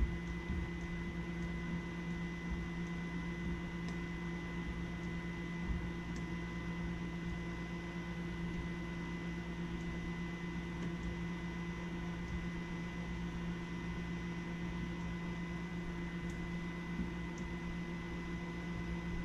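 Small air pump in a Fieldpiece pressure switch tester running steadily, a low hum with a faint high whine, as it slowly raises the test pressure on a furnace pressure switch.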